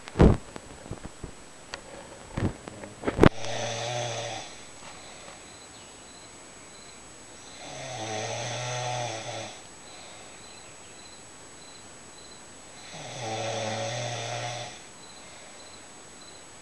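A woman snoring in her sleep: three long snores on a steady low pitch, about five seconds apart. In the first few seconds there are a few sharp clicks or knocks, louder than the snores.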